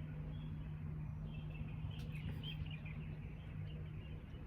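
Faint birdsong, short warbling chirps mostly in the middle, over a steady low electrical-sounding hum.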